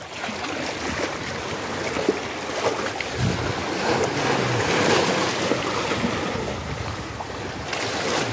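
Sea waves washing and sloshing among the shoreline rocks, with wind buffeting the microphone.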